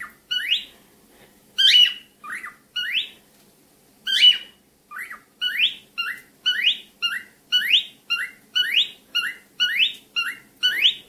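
Cockatiel chirping: a string of short, rising whistled chirps, unevenly spaced at first, then settling into a steady run of about two a second from roughly halfway through.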